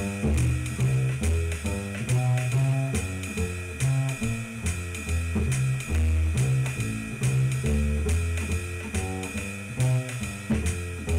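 Upright double bass plucked pizzicato, playing a jazz swing walking bass line in F major. It sounds one note per beat at about 140 beats a minute, outlining the chord changes.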